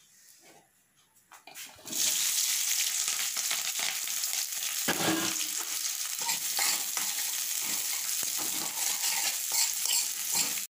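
Chopped onions sizzling in hot oil in a pan, stirred with a spatula that scrapes now and then. The sizzle starts about two seconds in and cuts off suddenly at the end.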